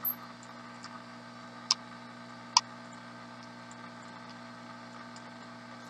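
Steady low hum and hiss of a workbench, with two short sharp clicks about a second apart near the middle and a few faint ticks.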